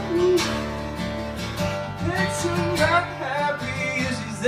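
Acoustic guitar strumming with a man singing over it.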